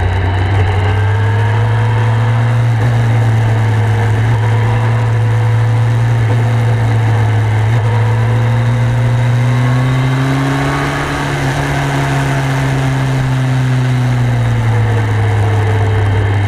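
Motorcycle engine heard from on board, running steadily at low revs while cruising, with wind and road noise. The revs rise a little about ten seconds in and settle back a few seconds later.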